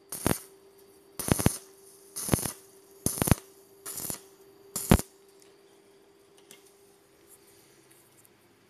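Electric arc welding on a hollow steel tube fence frame: six short crackling bursts of tack welds over about five seconds, then the arc stops. A faint steady hum runs underneath.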